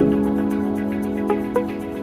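Background music: soft sustained chords with a few light plucked notes over them; the chord changes at the start.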